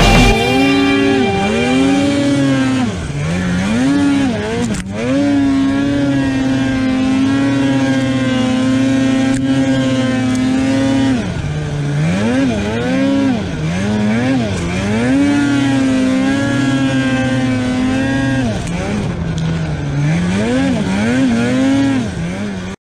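Polaris RMK 850 snowmobile's two-stroke engine heard from the rider's seat, revving up and down again and again as the throttle is worked through deep snow, with a stretch of steady high revs in the middle. The sound cuts off abruptly at the end.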